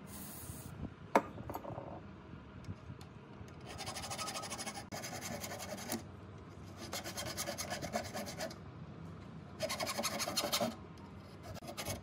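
A hand file scraping across the rusty steel end of an old hacksaw frame, in four spells of quick back-and-forth strokes starting about four seconds in. A single sharp click comes about a second in.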